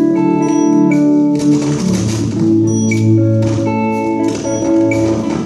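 Gospel band playing an instrumental passage between sung lines: held guitar and keyboard chords over a steady beat of about one stroke a second.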